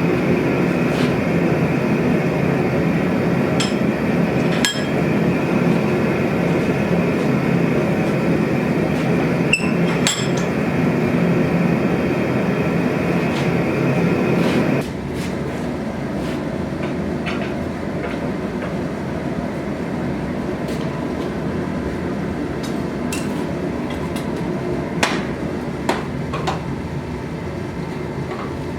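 A loud machine in a metalworking shop runs steadily and cuts off suddenly about halfway through, leaving a quieter steady hum. Sharp metallic clinks and knocks come here and there throughout.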